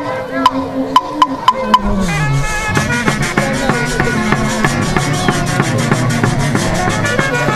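A festival orchestra starts playing. A few sharp percussion strokes come in the first two seconds, then about two seconds in the full band enters: wind instruments carry the melody over a steady drum beat.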